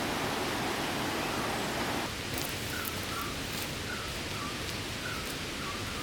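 Steady rushing of a waterfall. From about two seconds in, a bird gives short chirps over and over.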